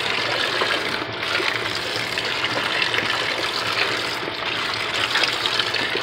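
Water pouring steadily into the drum of a top-loading washing machine as it fills for a wash.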